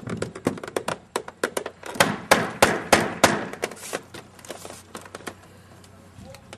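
A quick, irregular series of sharp wooden knocks and clacks, loudest and densest about two to three seconds in, then thinning out: wooden canoe frame parts, likely cedar ribs, being knocked and worked into place in the hull.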